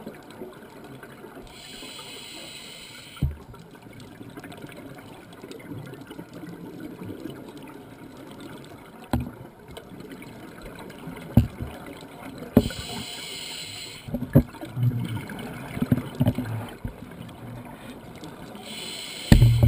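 Scuba diver's regulator exhaling, heard through an underwater camera housing: three hissing rushes of bubbles, about 2 s in, about 13 s in and again at the end, over a steady low underwater rumble. Short low knocks against the housing come several times in between.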